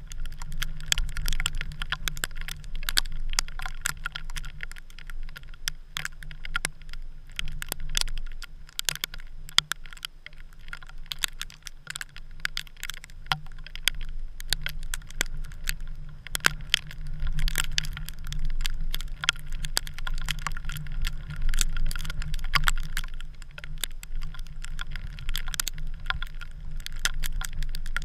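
Storm wind rumbling on the GoPro's housing, with many irregular sharp ticks throughout.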